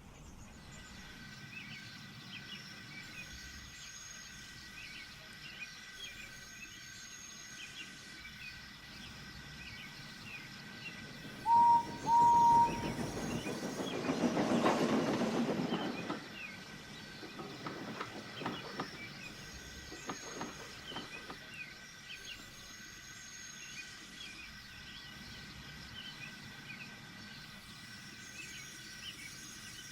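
Steam locomotive whistle giving two short toots, then a train running by, its noise swelling and fading, followed by a few sharp knocks. Birdsong and a faint country ambience run underneath throughout.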